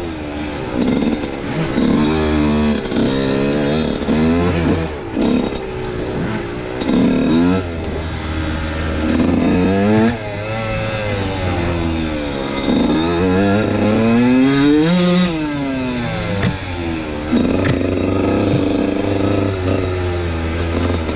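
Husqvarna WR 125 two-stroke enduro motorcycle engine under way, revving up and dropping back again and again with the throttle, a rise and fall about every one to two seconds.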